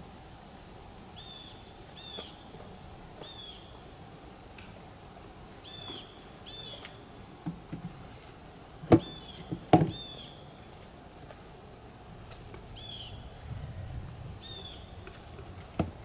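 Two sharp knocks about nine and ten seconds in as the wooden hive lid is set down on the beehive, and a lighter knock near the end as a brick is set on the lid. A bird repeats a short chirp every second or two.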